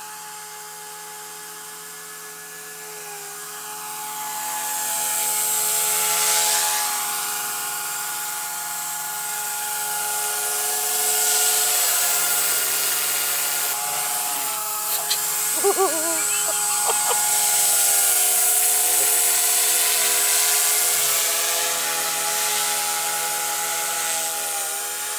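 Blade 130X micro RC helicopters flying: a steady high whine of their electric motors, in several held tones, with a rotor whoosh that swells and fades repeatedly as they come closer and move away.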